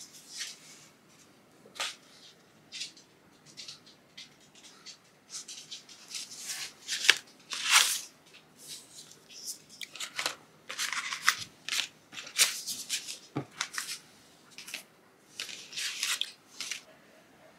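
Small paper envelopes rustling and sliding against one another as they are handled and spread out on a wooden tabletop, in irregular bursts with a few light taps.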